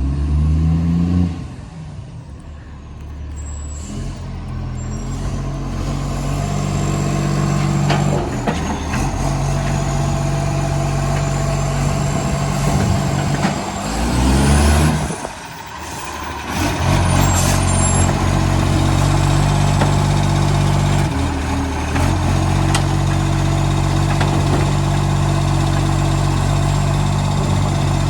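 Side-loader garbage truck's diesel engine with a massive exhaust leak, revving hard twice, about a second in and again about halfway through, then dropping back. Between the revs it runs steadily at a raised speed.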